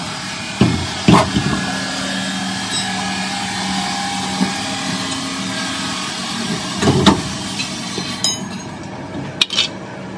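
Heavy thuds and knocks as a truck wheel, tyre and steel rim, is rolled into place and lifted onto the axle hub, with a couple of sharper metal clinks near the end, over a steady background hum.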